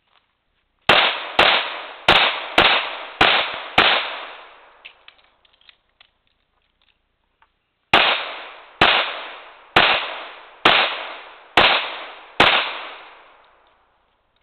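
Handgun shots in rapid strings: six shots in about three seconds, a pause of about four seconds, then six more at a slightly slower pace. Each shot has a short echo trailing off.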